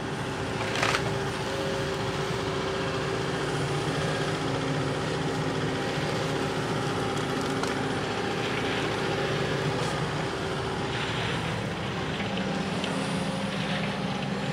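Tracked excavator's diesel engine and hydraulics running, with a steady drone and a few held whining tones as the machine moves and swings its tree-shear arm. There is a short knock about a second in, and the low drone grows fuller about twelve seconds in.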